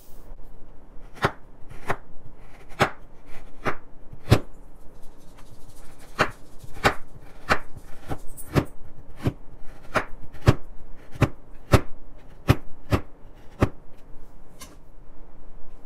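A blue plastic knife slicing again and again through a dry, crumbly bath bomb-style bar, each cut a short crisp crunch, about one and a half cuts a second.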